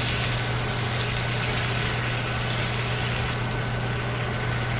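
New York strip steaks frying in butter with garlic and onion in a cast iron skillet, giving a steady sizzle, over a steady low hum.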